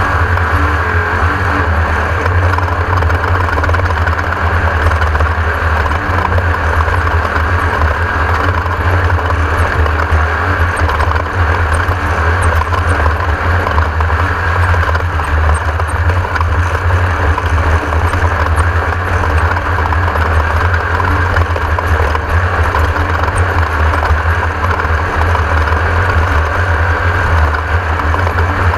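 Class 1600 off-road race buggy's air-cooled Volkswagen 1600 engine running hard at race speed, with the chassis rattling over rough desert ground, heard onboard. A loud, steady, unbroken din with no lifts or pauses.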